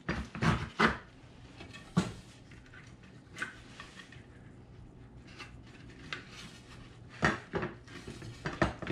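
Metal fasteners clinking and pine boards knocking on a wooden workbench as bolts are pushed through a chair side and fitted finger tight. There are several sharp knocks in the first two seconds, a quieter stretch of small ticks, then more knocks near the end.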